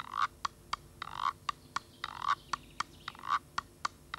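Notched bamboo tube scraper played with a thin stick, in a steady rhythm: a rasping scrape along the notches about once a second, each followed by two or three sharp taps on the tube.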